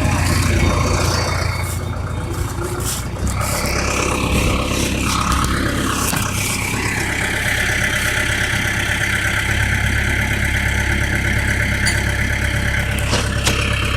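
Engine running steadily at idle, with a higher steady whine joining in about halfway through.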